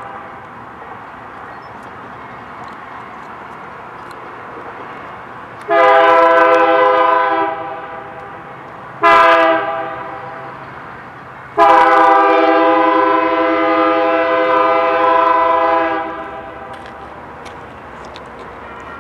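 Diesel freight locomotive's air horn sounding a chord in three blasts: long, short, then long. This is the end of the standard grade-crossing signal (long, long, short, long). A steady rumble from the approaching train carries on between the blasts.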